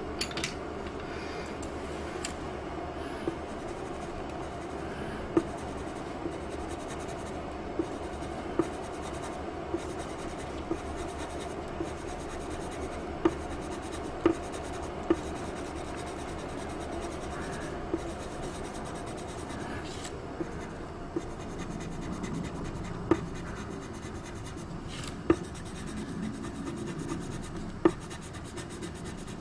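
Coloured pencil scratching and rubbing on drawing paper as colour is laid in with small strokes, broken by a dozen or so irregular sharp ticks.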